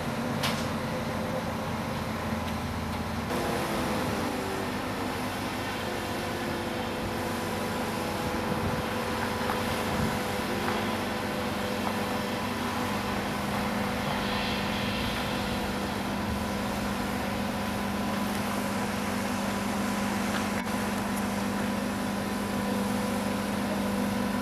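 Large 400-tonne mobile crane's diesel engine running steadily under load as it lifts a bridge girder, a constant droning hum.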